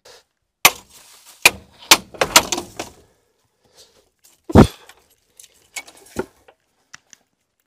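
Metal clinks and knocks of hand tools on the U-bolt nuts clamping a front drive axle, a string of sharp strikes over the first three seconds, then a single heavy thud about halfway through and a lighter knock later.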